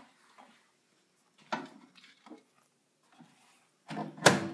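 Microwave oven door clicking shut about a second and a half in, then a few faint clicks and a loud sharp knock near the end as hands work its keypad, followed by a brief steady low tone.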